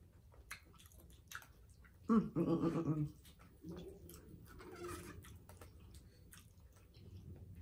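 Close-miked chewing with small wet mouth clicks, broken by a loud hummed 'mmm' of enjoyment about two seconds in and a softer one around four to five seconds.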